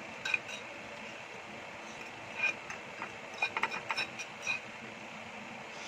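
Fork clinking and scraping against a ceramic plate of noodles: a light tap about a third of a second in, then a quick run of small clinks from about two and a half to four and a half seconds in.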